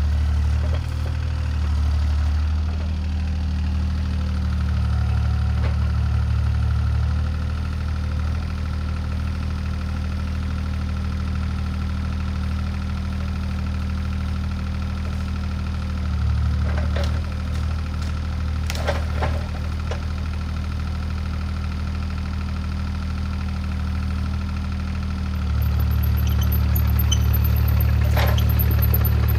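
CAT 303C CR mini excavator's diesel engine running steadily, its low drone swelling several times as the machine works, loudest near the end. A few sharp knocks about two-thirds of the way through and again near the end.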